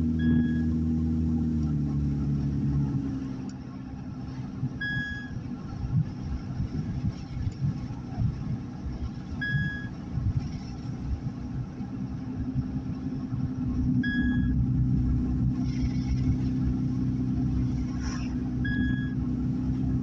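Car being driven, heard from inside the cabin: engine and road rumble, with the engine note dropping in pitch in the first couple of seconds. A short electronic beep repeats about every four and a half seconds.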